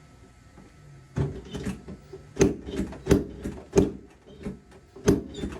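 Chiropractic adjustment: a series of sharp knocks, starting about a second in and coming irregularly, about two to three a second. It corrects the tailbone area after a leg-raise check showed the left leg lifting lower.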